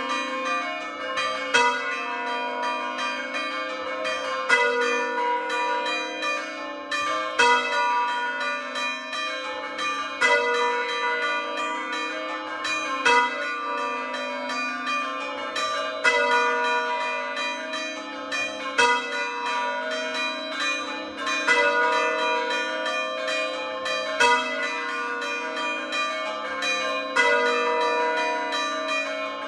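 Hand-rung church bells from a set of four, the largest an A3 bell cast by De Poli in 1921 and the other three by Paolo Capanni in 1951. They ring in a continuous run of overlapping strokes, with a louder stroke about every three seconds.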